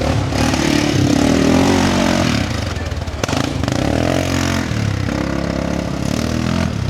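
Four-wheel-drive ATV engine running, its pitch rising and falling as the revs change.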